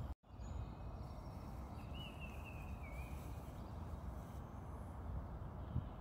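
Outdoor ambience: a steady low rumble with the sound cutting out for an instant right at the start. About two seconds in, a short high warbling bird call of three or four wavy notes, with a couple of faint thin chirps before it.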